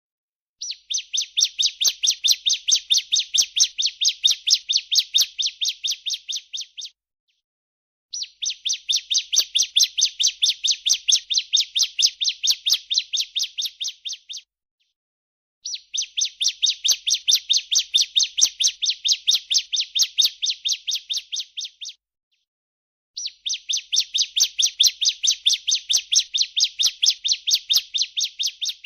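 Female ciblek (bar-winged prinia) giving its 'breeen' call: four long rapid trills of about six seconds each, at roughly five notes a second, each swelling then fading, with short pauses between. It is a high, shrill call used as a training (masteran) sound for songbirds.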